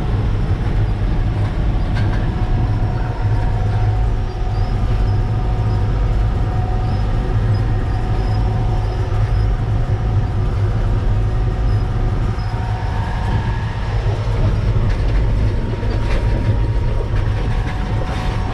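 Concrete mixer truck driving: a steady, loud low rumble of the heavy diesel engine and running gear, with occasional light clicks and rattles.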